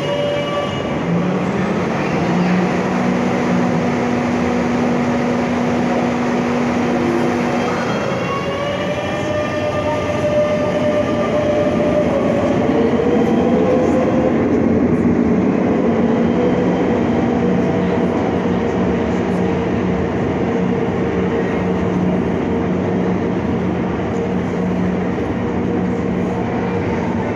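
Madrid Metro series 7000 electric train pulling out of the station, its traction motors whining in several steady tones that shift in pitch a few times, over the continuous rumble of wheels on rail.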